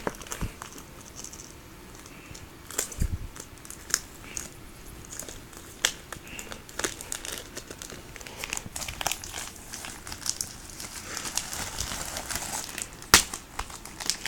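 Packaging being handled and unwrapped: irregular crinkling and rustling with scattered clicks and taps. The rustling grows denser in the second half, and a sharper knock comes near the end.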